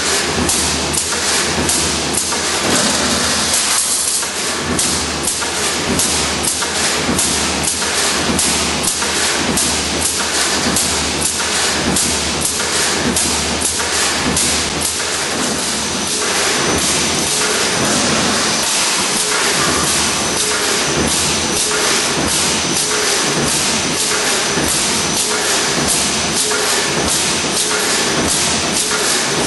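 Dowel basket side frame welding line running: a steady, rapid run of knocks from the machine's working strokes over a constant hiss.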